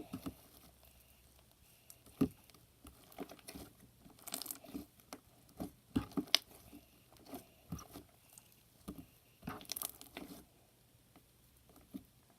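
Slime mixed with shaving cream being handled and squished by hand: scattered wet clicks, crackles and squishes at irregular intervals.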